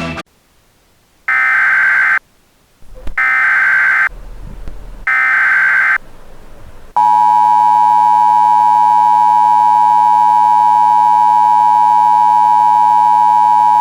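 Emergency Alert System SAME header: three bursts of digital data tones, each about a second long, marking the start of an emergency alert. About seven seconds in, the two-tone attention signal starts, a loud steady dual tone that holds on.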